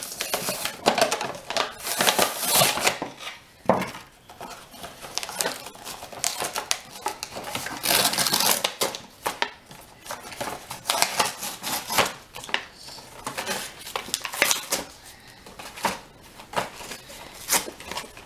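A K'Nex figure pack being opened by hand: irregular crinkling and tearing of the packaging, with scattered sharp clicks and rattles of small plastic pieces.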